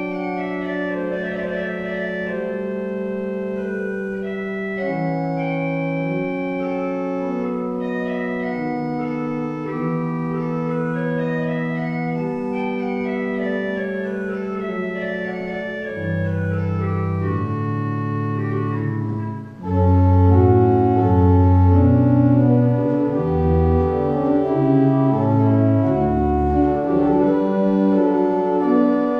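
Church organ playing slow, sustained chords with a melody line above. Low bass notes come in about 16 seconds in, and after a brief drop near 19 seconds it plays louder and fuller to the end.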